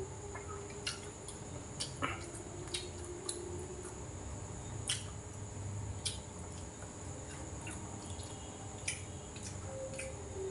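Wet mouth clicks and smacks of a person chewing food, irregular, over a steady high-pitched whine and a low hum.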